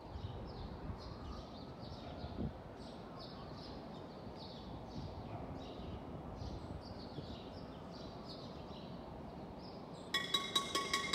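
City ambience: a steady low hum of traffic with a bird chirping over and over, about two chirps a second. About ten seconds in, a ringing metal object starts being struck rapidly, several quick clanging strikes in a row.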